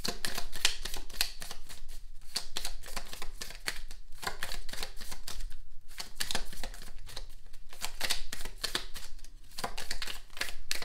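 A deck of oracle cards being shuffled by hand: a fast, continuous run of card clicks and flutters with a few short pauses, as the reader looks for the next card to come out.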